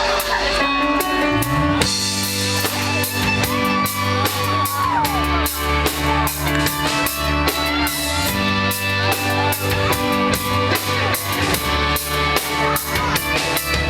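Instrumental break of a rock song: band with drum kit, electric guitar and bass playing, with a bending guitar lead line and no singing.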